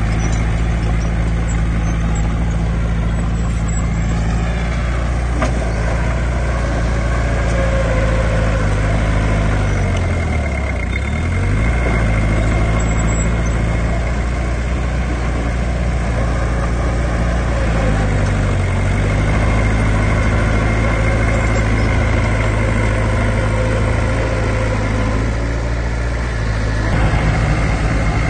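Heavy diesel engine of earthmoving machinery running steadily, its engine speed dipping and picking up again about ten seconds in and more briefly near eighteen seconds.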